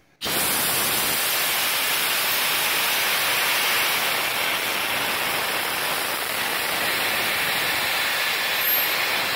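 Compressed air blasting out of an open brass ball valve on an air compressor tank: a loud, steady hiss that starts almost at once and holds level. The expanding air comes out so fast and so cold that the valve ices up.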